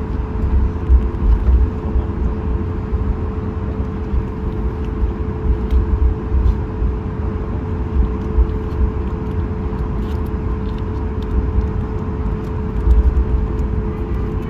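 Cabin noise of a Boeing 737 MAX 8 taxiing, heard from a window seat beside the wing. Its CFM LEAP-1B engines at taxi power give a steady hum with a constant mid-pitched tone over an uneven low rumble.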